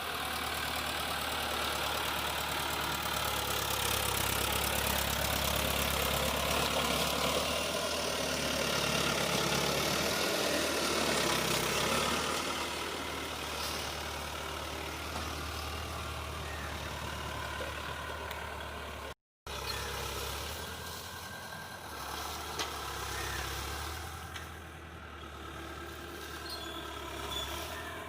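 Tractor engine running steadily under load while ploughing, a continuous low hum with a broad mechanical rumble. It swells a little in the first half and cuts out for a moment about two-thirds of the way through.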